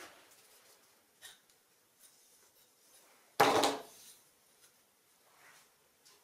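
Small wooden pieces being handled: a few faint taps and rubs, and about three and a half seconds in one loud wooden knock that dies away over about half a second.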